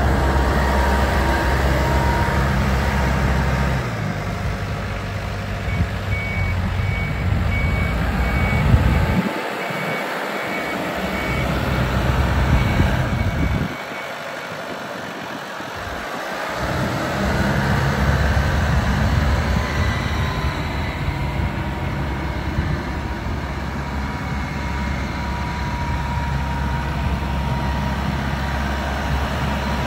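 Branson 5520 compact tractor's diesel engine running steadily as the tractor drives about, the engine note dropping away twice in the middle. For several seconds in the middle a reversing beeper sounds in quick, even beeps.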